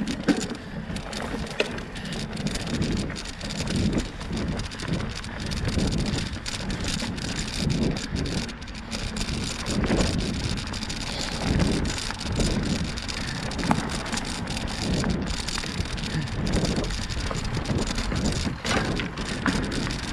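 Bicycle tyres rolling over a leaf-covered dirt trail: a continuous crackle of dry leaves and twigs with small rattles and knocks from the bike over bumps. Wind buffets the microphone in uneven low swells.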